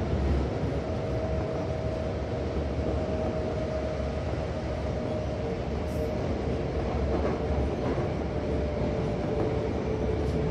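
Toei Asakusa Line 5300 series subway car running at speed, heard from inside the car: a steady low rumble of wheels and running gear with a faint steady whine over it.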